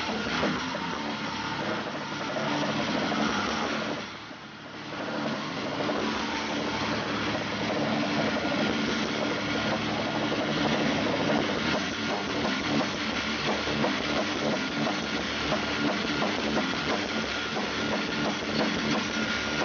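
Angle grinder running and grinding against metal plates worn on a performer's body, throwing sparks. The grinding is steady, with a brief drop about four seconds in.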